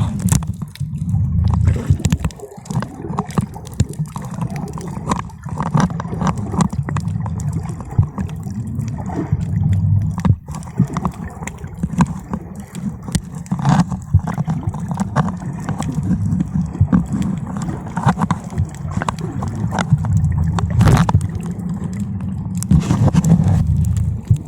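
Muffled sloshing and gurgling of seawater picked up by a camera under the water's surface, a steady low rumble with scattered sharp clicks.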